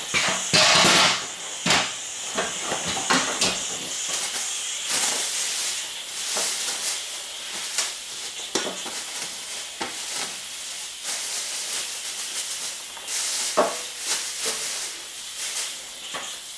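Aerosol spray can hissing in several sprays, the loudest about a second in, with short crackles and knocks in between.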